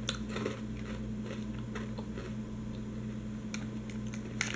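Someone chewing a black pepper dipper snack: faint, irregular crunches and mouth clicks over a steady low hum, with a sharper click or two near the end.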